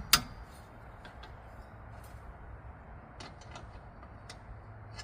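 One sharp metal click from a wrench working a brake caliper bolt, then a low steady hum with a few faint light metal clicks and ticks about three and four seconds in.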